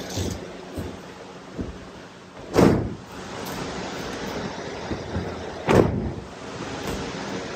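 Two heavy thuds about three seconds apart: aikido partners' bodies landing on tatami mats as they take breakfalls from kneeling hip throws, with a few lighter knocks between.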